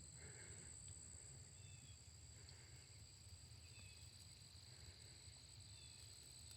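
Faint outdoor ambience of insects giving a steady high-pitched drone, with a few soft short chirps over it.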